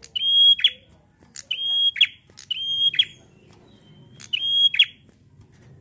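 Caged prenjak bird singing: four loud calls, each a held high whistle that snaps down in a sharp falling sweep at its end.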